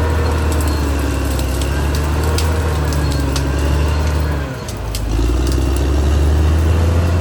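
Caterpillar D6R XL bulldozer's diesel engine running steadily under work, with scattered clicks and knocks. A little past halfway the engine note drops briefly, then picks back up.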